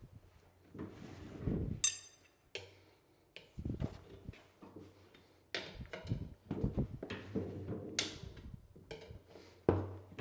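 Tire iron levering the bead of a Dunlop MX34 front tire over the rim: rubber and metal scraping with sharp clicks and clinks of the iron against the rim, the sharpest about two seconds in and again near eight seconds.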